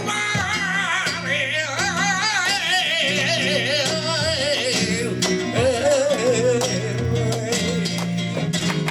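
Flamenco tangos: a cantaor sings a long, wavering, ornamented vocal line over flamenco guitar, with sharp percussive strikes coming in near the end.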